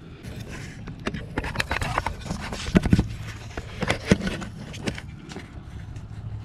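Handling noise as a handheld camera is moved around among the engine-bay parts: irregular knocks, clicks and rustling over a low rumble, with the loudest knocks about three and four seconds in.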